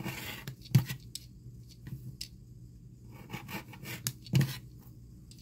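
Rotary cutter rolling through layered terry cloth on a cutting mat as the excess is trimmed, a scraping, rubbing sound, with a few knocks from handling the fabric and tools, the loudest about four and a half seconds in.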